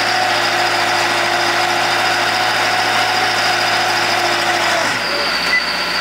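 Yarder engine running steadily under load as its winch drums work the cable lines. A little before five seconds in, the engine note drops and changes, as when the machine eases off or shifts.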